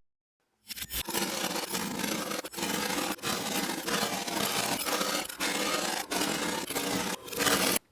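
Kinetic sand being worked, a continuous fine crunching crackle full of tiny grainy clicks that starts about half a second in and breaks off briefly near the end.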